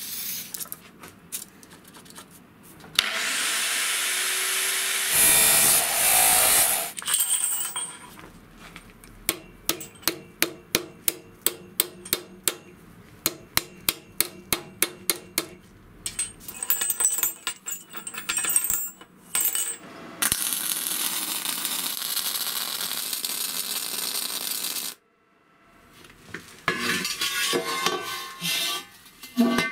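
Metalworking sounds in quick succession: a power tool starting with a short rising whine and running, then a long regular run of sharp taps, about two or three a second, then a power tool running steadily until it cuts off suddenly.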